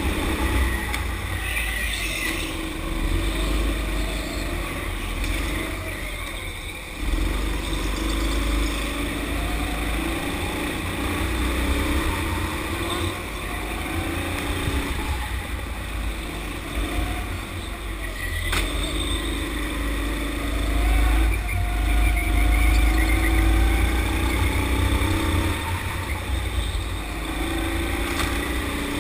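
Sodi rental go-karts running hard around a track, their engine note rising and falling again and again as they speed up and slow down through the corners.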